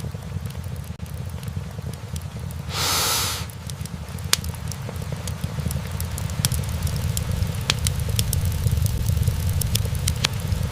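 Wood fire burning in a fireplace: a steady low rumble of flames with sharp crackles and pops, sparse at first and more frequent after about four seconds. A short hiss about three seconds in is the loudest moment.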